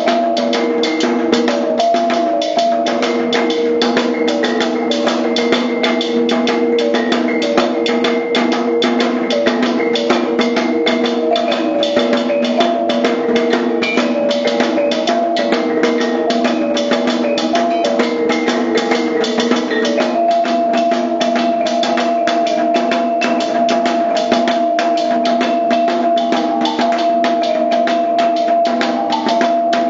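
Maguindanao kulintang ensemble playing the sinulog a kangungudan mode. A row of eight tuned bronze gong-kettles, struck with two sticks, carries the ringing melody over a fast, even beat from the drum and hanging gongs.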